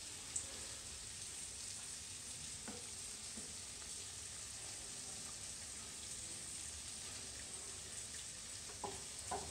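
Beef curry boiling and sizzling in a wide pan, a steady hiss, while a wooden spatula stirs it, with a few light knocks of the spatula against the pan.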